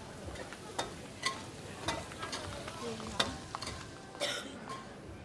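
Busy street ambience: a steady hiss of background noise with scattered sharp clicks and clatters, the loudest about three seconds in, and faint voices in the distance.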